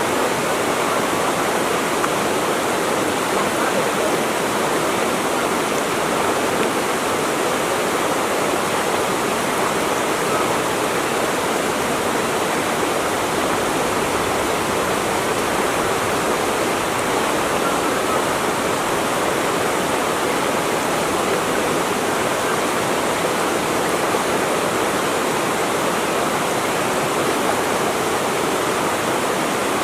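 Running water, a steady even rush with no breaks or changes.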